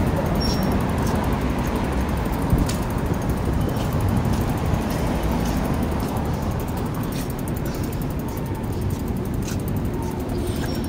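Steady low rumble of wind on the microphone and rolling noise from a bike moving along a sidewalk, with a few light clicks and knocks along the way.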